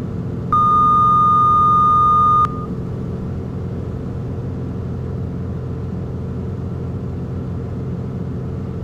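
Piper Malibu's piston engine droning steadily, heard from inside the cabin. About half a second in, a loud electronic alert tone sounds at one steady pitch for about two seconds and cuts off sharply.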